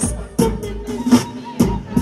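Dancehall backing track with a steady drum beat, about two to three hits a second, played through a stage sound system.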